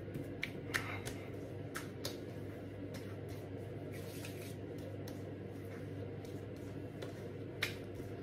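Hands slapping and patting aftershave splash onto wet face and neck: a few short slaps in the first two seconds and another near the end, over a steady low hum.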